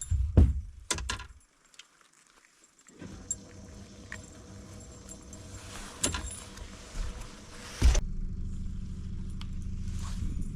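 A few sharp knocks, then a steady low motor hum with a faint steady whine. A hard thump comes near the end, after which a deeper, louder motor hum runs on.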